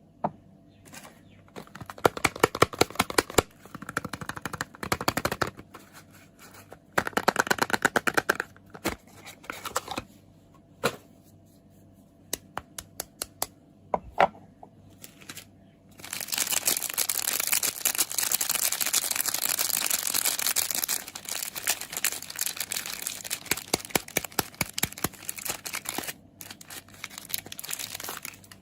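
Soap packaging being unwrapped by hand: wrapping crinkling and tearing amid sharp clicks and taps. A little past halfway comes a long unbroken stretch of tearing and crinkling.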